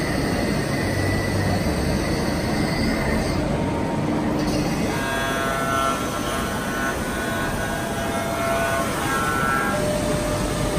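5-axis CNC milling machines cutting metal: a dense, steady machining noise. About five seconds in the sound changes, and thin high whining tones from the spindle and cutter come in.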